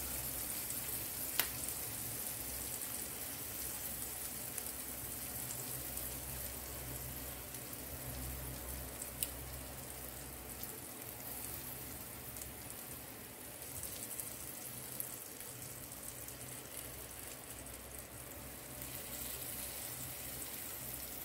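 Butter sauce sizzling on hot baked lobster tails in a glass baking dish as they are basted: a steady, quiet, fine crackle, with a couple of faint ticks.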